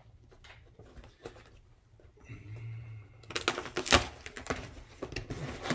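Cardboard shipping box being torn open by hand: a few light handling taps at first, then from about three seconds in a loud ripping and crackling of the cardboard flap, sharpest about four seconds in.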